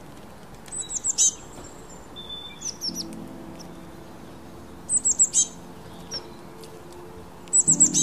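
Small songbird chirping: three quick runs of high, short chirps, about a second in, about five seconds in and near the end. A faint low steady drone sits underneath from about three seconds in.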